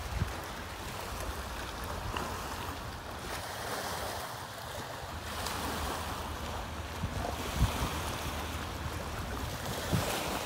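Small waves lapping and washing onto a sandy, rocky lake shore, with steady wind rumbling on the microphone.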